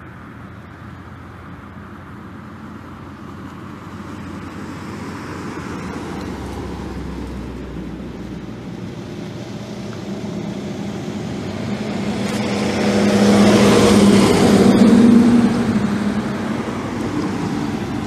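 Road traffic: cars passing along the street, with tyre and engine noise. One vehicle passes close, swelling to a loud peak about two-thirds of the way through and then fading.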